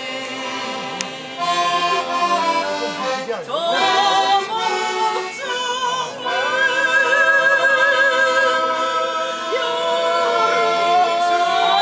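A singer performing a song over backing music, holding one long wavering note through the second half.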